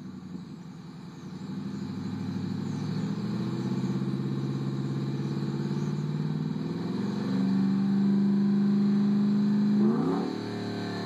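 Ford F-150 V8 through a Cherrybomb Extreme muffler and single side-exit pipe, revved slowly up from idle, held at high revs for a few seconds, then let fall back toward idle near the end.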